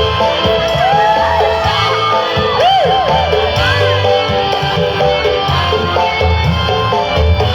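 Music playing, with people in the crowd shouting and whooping over it, most of all in the first half.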